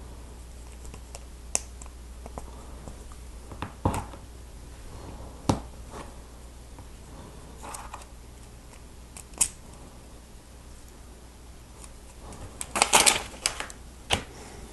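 Plastic Lego Technic pieces being handled and snapped together: scattered sharp clicks, with a short rattling clatter of pieces near the end.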